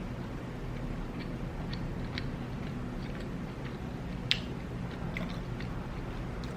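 Close-up chewing of a Jamaican curry chicken patty: small, scattered mouth clicks, with one sharper click about four seconds in.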